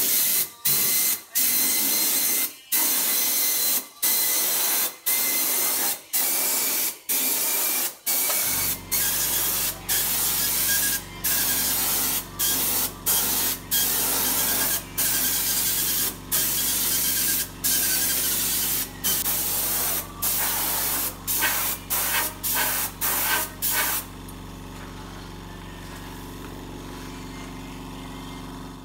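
Air-powered gravity-feed paint spray gun hissing in many short bursts, roughly one or two a second, as the trigger is pulled and released over a bicycle frame. A steady low hum joins about a third of the way in. The hissing stops near the end, leaving only the hum.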